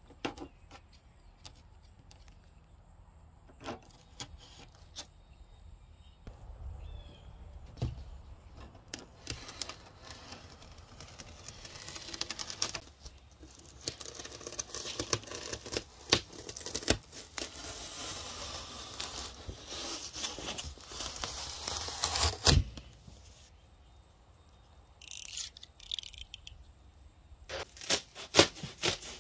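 A blade cutting through a rigid expanded-polystyrene foam insulation board (DuroSpan R10), a scratchy tearing sound in many short strokes, with a sharp crack about two-thirds of the way through. Scattered clicks and knocks from handling the board come before and after.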